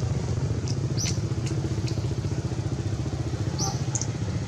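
An engine running steadily at idle, a low, evenly pulsing drone, with a few short high chirps over it.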